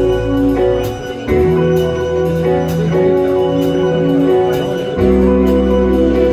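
Live jazz-fusion band playing an instrumental: electric bass holding long low notes that shift pitch about a second in and again near the end, a repeating melodic figure above it, and regular cymbal strokes from the drum kit.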